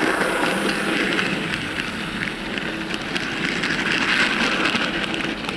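Model train running on layout track: the Dapol LSWR B4 tank locomotive hauling goods wagons, with a steady rattle of wheels and motor and many small clicks from the wheels over the rail joints.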